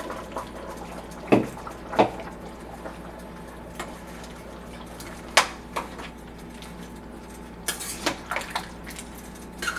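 Diced potatoes tipped from a bowl into a stainless steel pot of simmering stew, then a metal spoon stirring them through the liquid, with scattered sharp knocks of utensils against the pot, a cluster of them near the end.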